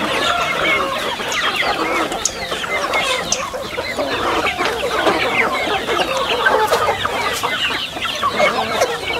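A large flock of native country chickens (nattu koli), young growers and hens, clucking and calling together in a dense, continuous chatter of many overlapping short calls.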